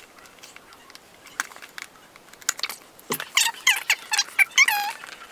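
Scissors snipping the seal on a cardboard box, then cardboard scraping and squeaking as the box is opened, with quick clicks and short squeaks in the last two seconds.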